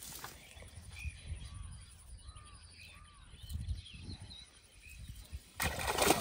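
A cast net is pulled up out of the water near the end, with a sudden splashing rush as it breaks the surface. Before that, faint short bird calls repeat every second or so.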